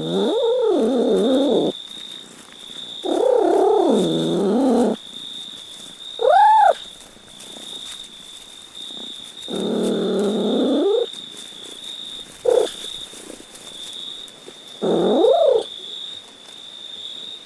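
Domestic cat meowing, about six separate drawn-out meows with pitch rising and falling, one short higher-pitched mew about six seconds in. A steady faint high whine sits under them.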